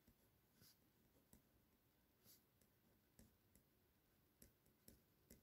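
Near silence with faint, scattered clicks and soft taps, about eight in all, from a hand and pen moving on a paper worksheet while writing.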